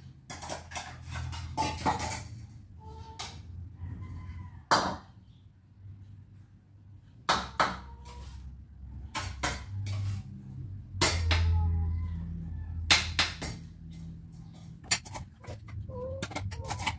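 Cats meowing in short calls, some falling in pitch, while they wait to be fed. Sharp clicks and clatters run through it, and a low hum sits underneath.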